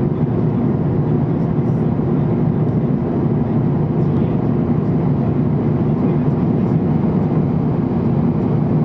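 Steady drone of a jet airliner's cabin noise in cruise: engine and airflow noise heard from inside the cabin, loud and unchanging.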